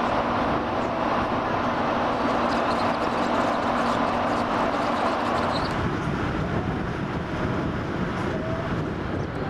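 Steady rumble and wind noise on the open deck of a large ferry, with a low steady hum that drops out about halfway through.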